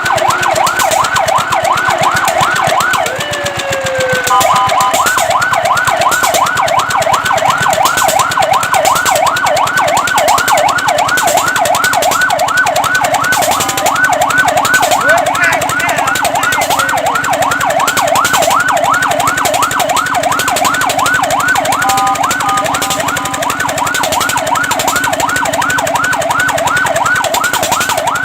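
Fire truck siren in a fast yelp, rising and falling about four times a second. The pattern breaks briefly a few times: a slower falling wail a few seconds in, and short steady tones near the middle and about three-quarters through.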